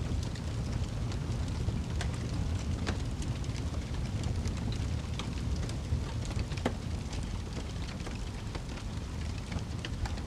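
Wood fire burning in a fireplace: a steady low rush of flames with frequent small crackles and pops of the burning logs, a few sharper pops among them.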